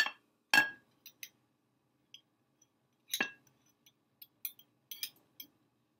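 Metal spoon clinking against a glass jar of maraschino cherries while cherries are scooped out: three sharp ringing clinks, at the start, about half a second in and about three seconds in, then a few fainter ticks.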